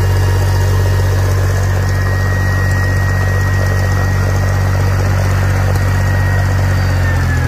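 David Brown tractor's gasoline engine idling steadily, with a thin steady whine above the engine note.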